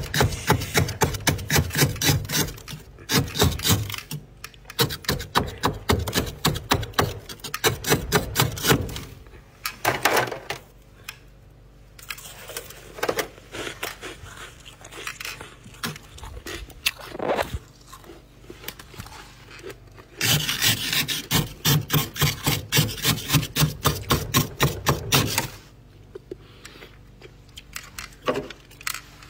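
Utensil scraping soft, crispy frost off the walls and shelf of a freezer, in rapid rasping strokes. There are two long busy runs, with a stretch of slower, separate scrapes between them. It goes quieter near the end.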